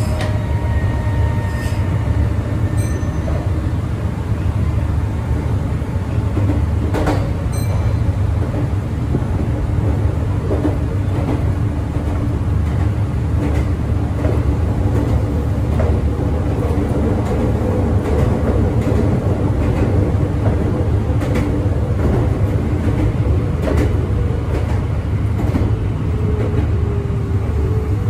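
Meitetsu Tokoname Line electric local train running, heard from inside the carriage: a steady low rumble with a hum that holds through much of the run, and now and then a sharp click.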